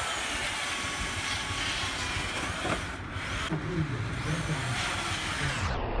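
Steady machinery noise, an engine running with a hiss and a few faint rising whines.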